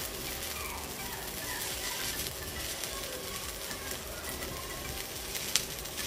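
Stick-welding arc of a 2.5 mm 6013 electrode (Fontac) burning steadily, with a continuous crackling, frying hiss as the bead is laid, and one sharp pop near the end.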